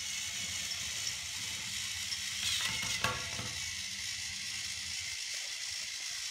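Motorized Thomas & Friends TrackMaster toy trains whirring along plastic track, with a sharp clack about three seconds in as two engines collide and one tips over. The low motor hum thins out about five seconds in while a steady whir carries on.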